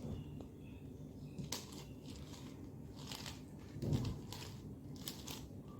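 Faint plastic clicking and scraping of a 7x7 Rubik's cube's layers being turned by hand, with a handful of separate clicks spread through.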